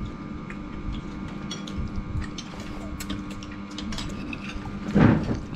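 Metal spoons clinking and scraping against ceramic bowls and plates as people eat rice, in light scattered clicks. A short, louder thud comes about five seconds in.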